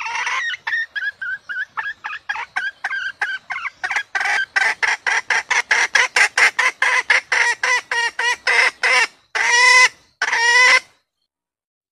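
Red junglefowl hen clucking in a rapid run of short clucks, about four to five a second, growing louder and quicker about four seconds in. It ends with two longer, harsher calls and then stops.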